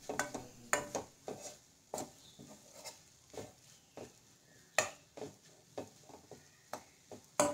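Spatula stirring and scraping a thick onion-and-gram-flour filling against the sides of a kadai as it roasts: irregular scrapes and knocks on the pan, the sharpest about five seconds in and again near the end.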